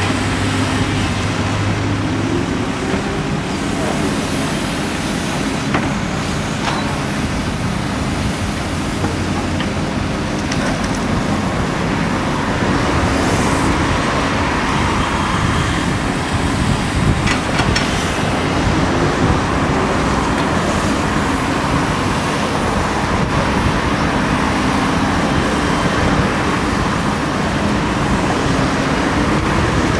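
Diesel engine of a Daewoo crawler excavator running under load as it digs and swings, its pitch rising a few times as the hydraulics take the strain. Steady road-traffic noise runs underneath.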